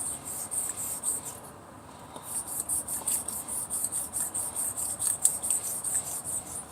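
Steel hair-clipper blade rubbed back and forth on a wet whetstone: quick, even scraping strokes about four a second, with a short pause early on before they resume.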